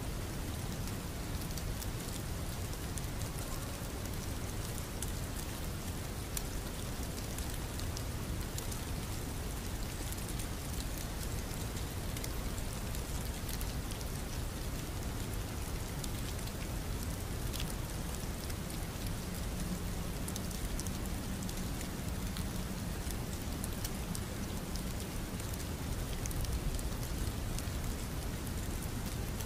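Recorded rain ambience: steady rainfall with a fine, even patter of drops.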